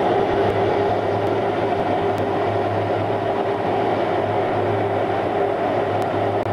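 A steady mechanical drone: a low hum under a few held mid-pitched tones, even in level throughout.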